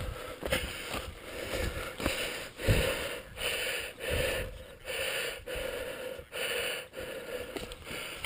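A man breathing hard, a quick rhythm of in-and-out breaths about one and a half a second, out of breath from pushing a mountain bike up a steep sandy trail. A dull thump comes near the middle.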